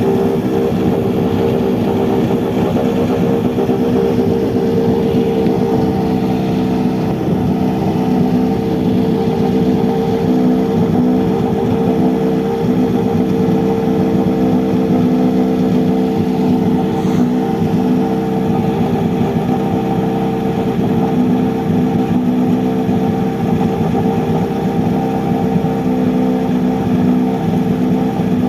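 Volkswagen Polo GTI R5 rally car's turbocharged 1.6-litre four-cylinder engine idling at a steady, unchanging speed.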